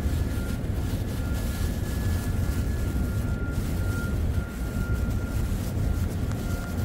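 Steady low rumble of a ship's machinery running, with a faint thin whine held above it.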